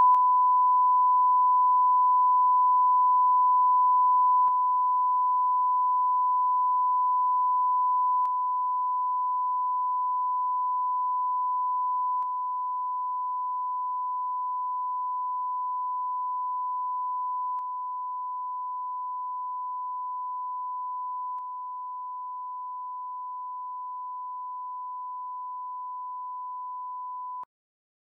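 A steady 1 kHz sine test tone, a line-up tone for aligning level meters. It drops in level in even steps of about 3 dB every four or five seconds, with a faint click at each step, and cuts off shortly before the end.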